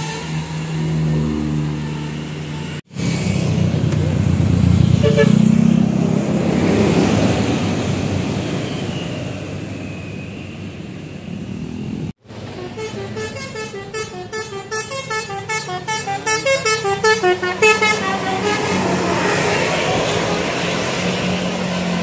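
Tour buses passing with engine and tyre noise. About two-thirds of the way in, a bus's musical air horn ('telolet') plays a rapid tune of short, stepping notes for about five seconds, then the traffic noise carries on.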